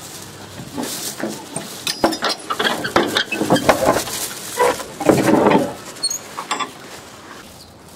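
Iron latch on a wooden plank gate being worked by hand: a run of metallic clanks and rattles, busiest about five seconds in.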